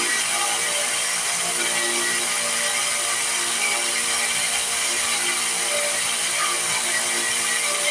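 Electric power sander running steadily, abrading a wooden knife handle, with a constant motor hum under the grinding hiss.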